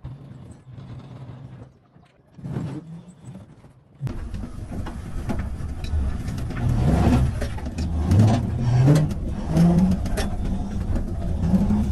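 A homemade electric car built on scrapped electric-vehicle wheels, driving, heard from the driver's seat. About four seconds in, a loud low rumble and rattling begins, with a low motor whine rising and falling as it goes. Before that there is only a quieter low hum.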